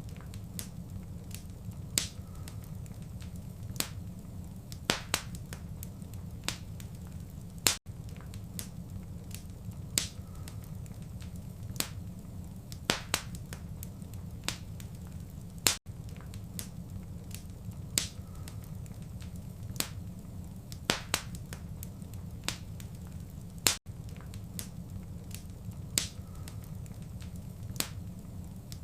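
Fireplace fire crackling: sharp irregular pops and snaps over a steady low rumble. The same eight-second stretch repeats, with a brief dropout at each join of the loop.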